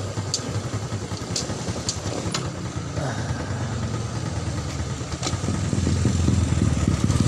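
Motorcycle engine running steadily on the road, getting louder toward the end as it comes closer.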